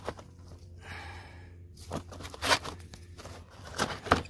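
Cardboard box of firework artillery shells being torn and worked open by hand: several short tearing and rustling sounds, with a faint steady low hum underneath.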